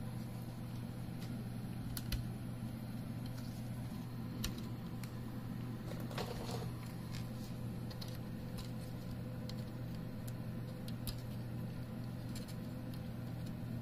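Scattered light clicks and taps of parts and tools being handled, with a small run of them about six seconds in, over a steady low hum.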